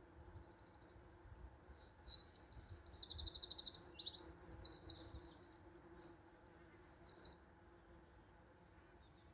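A songbird sings one long, varied song of rapid high trills and chirps, starting about a second and a half in and stopping about seven seconds in, over a faint low background hum.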